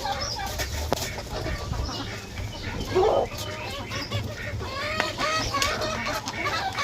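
A flock of chickens clucking and calling, many short overlapping calls, with one louder call about three seconds in.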